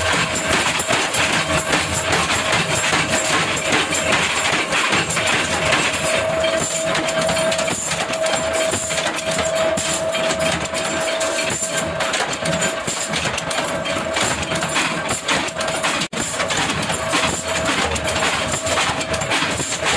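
Factory machinery running, a continuous dense clatter of rapid knocks over a steady hum. It breaks off for an instant about sixteen seconds in.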